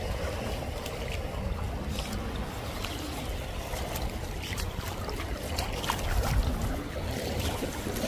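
Shallow seawater lapping over sand and rocks at the water's edge, with many small splashes and trickling ticks, over a steady low rumble of wind on the microphone.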